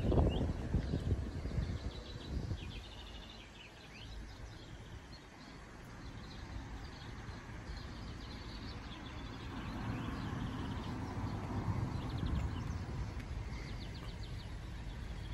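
Gusty wind rumbling on the microphone, strongest about a second in, with small birds chirping and trilling in short bursts throughout.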